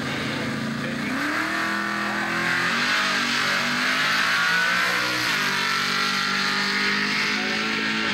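Car engine accelerating hard down a drag strip, revs climbing, with a gear change about five seconds in.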